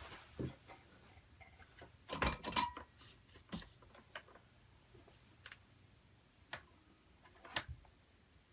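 Scattered clicks and knocks of hand tools being picked up and set down on a towel-covered workbench, with a louder cluster of clatter about two seconds in and single light clicks every second or so after.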